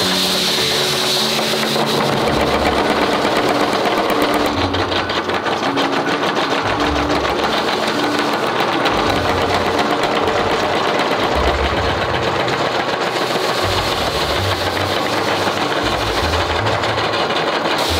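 Mechanical spring power hammer striking a red-hot steel bar in a rapid, steady run of blows, drawing the bar out into a tapered hoe blank.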